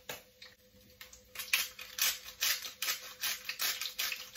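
Small jar of roasted garlic and pepper seasoning shaken over a wok, rattling in quick strokes, about three to four a second, starting a little over a second in.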